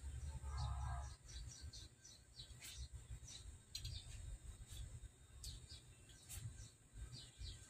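Small birds chirping: short, high, falling chirps repeated irregularly throughout, over a faint low rumble.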